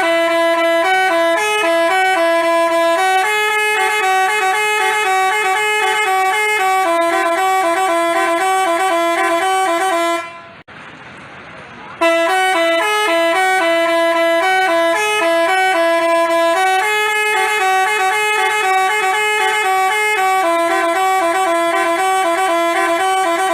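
Telolet musical bus horn of the Basuri type playing a quick melody of bright, stepping horn tones. The tune stops about ten seconds in, and after a pause of under two seconds the same tune plays again.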